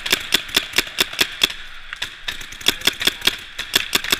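Paintball markers firing rapid strings of sharp pops, about four or five shots a second, with a short pause near the middle.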